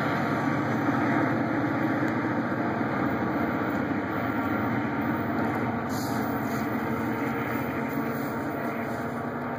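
EMD GP40PH-2B diesel locomotive's V16 EMD 645 engine running under power as it shoves a commuter train away, its steady drone and the rumble of the train slowly fading.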